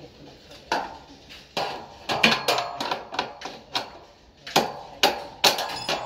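Irregular sharp metal knocks and clanks, a dozen or so strikes, from work on steel wall formwork panels.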